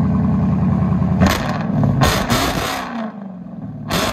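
Dodge Charger Hellcat Redeye's supercharged 6.2-litre Hemi V8 through a straight-piped 2.5-inch exhaust, with the X-pipe, active valves, mufflers and resonators deleted and the factory catalytic converters kept. It runs with a steady deep rumble, then is revved in loud harsh blasts about a second in and again at two seconds, the revs falling back between them, with another short blast near the end.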